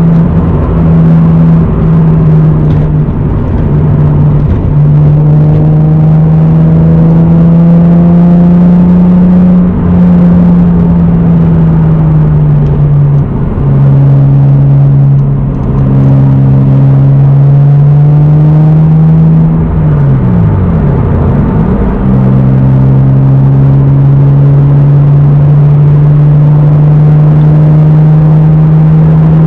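1993 Toyota Supra's naturally aspirated 3.0-litre inline-six with an aftermarket exhaust and K&N intake, running steadily under way at cruising revs. Its note steps down in pitch about 13 s in, then dips and climbs back around 20 s before holding steady again.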